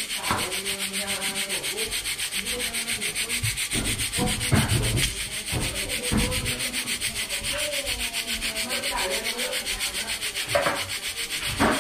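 A tin can of coconut milk being scraped, a metal rubbing sound in a fast, even rhythm, with a few louder knocks.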